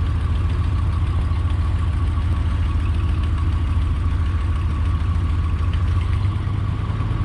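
Vehicle engine running steadily at low revs: a deep, even drone that holds the same note throughout.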